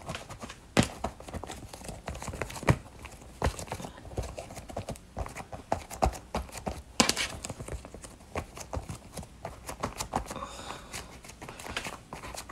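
Irregular soft knocks, pats and clicks of hands pressing and smoothing a sheet of air-dry foam clay down over a styrofoam gumdrop form on a cutting mat. Louder taps come unevenly, a few seconds apart.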